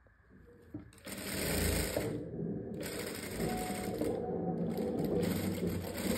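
Industrial single-needle lockstitch sewing machine stitching a shoulder seam, starting about a second in and then running steadily.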